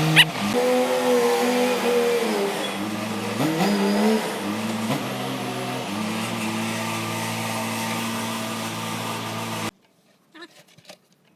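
Vehicle engine running, its pitch rising and falling as it is revved, then cut off abruptly near the end; a few faint clicks follow.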